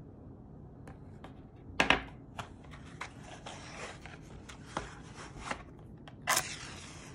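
Metal wick dipper set down on a hard tabletop with a sharp clatter just under two seconds in, followed by a few light clicks and handling noises. A short scrape comes near the end.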